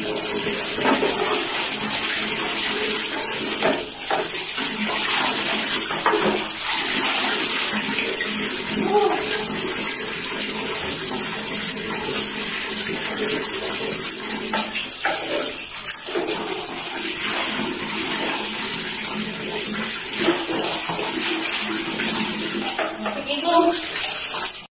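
Water running steadily from a tap into a plastic bucket, a continuous splashing rush that stops abruptly near the end.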